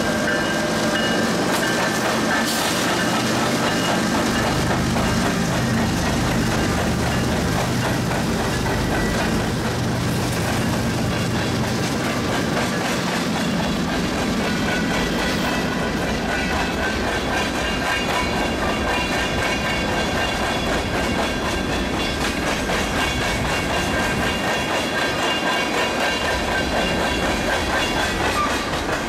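A freight train passing at close range. Its diesel locomotives run by with a steady engine drone in roughly the first half, then a string of freight cars rolls past, the steel wheels running over the rails.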